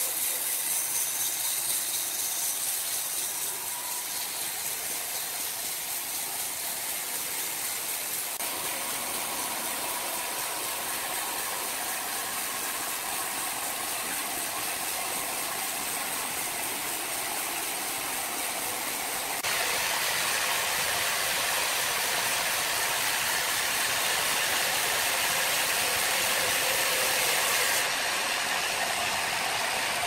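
Horizontal band sawmill running and cutting through a log: a steady high hiss of the band blade in the wood over the machine's mechanical hum. The sound changes abruptly in level and tone a few times.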